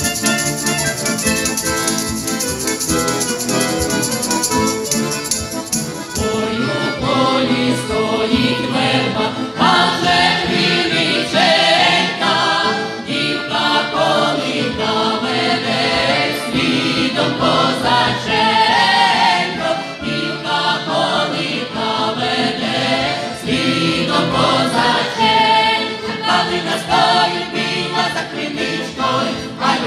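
Ukrainian folk song ensemble of women's and men's voices singing in chorus with accordion accompaniment. A bright high shimmer in the opening part stops about six seconds in, and the massed voices then carry the song.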